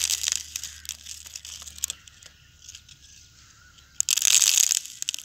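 Urea granules sprinkled from the fingers onto a dry leaf: a short burst of many small ticks at the start and another about four seconds in, with scattered small crackles between.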